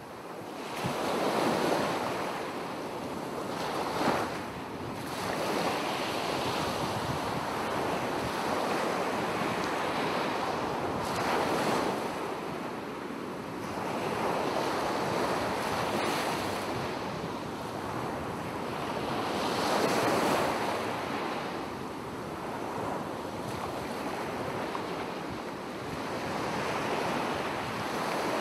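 Sea surf washing onto a sandy beach: a continuous rush of small waves that swells and eases every few seconds.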